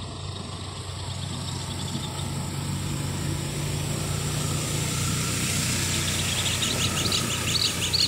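An engine running steadily with a low hum, growing gradually louder. A small bird starts chirping rapidly about six seconds in.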